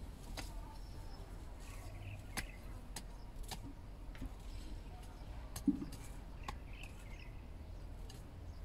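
Small hand hoe working dry, clumpy soil: scattered scrapes and clicks of the blade in the dirt, with one louder dull thud a little after halfway. Birds chirp faintly now and then.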